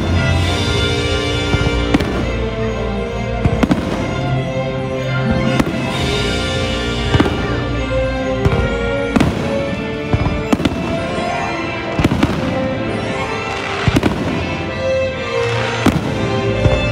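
Fireworks show: aerial shells bursting with a run of sharp bangs, about one every second or so, over loud show music that plays throughout.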